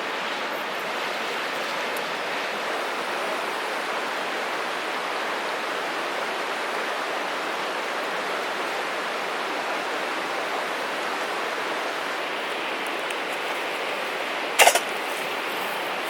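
Steady, even rushing hiss, with one short, sharp crack near the end.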